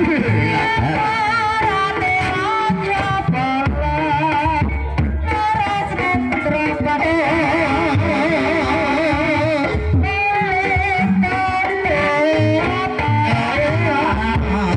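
Live campursari-style ebeg accompaniment: a singer's high, wavering, ornamented melody over held instrument tones and low hand-drum strokes.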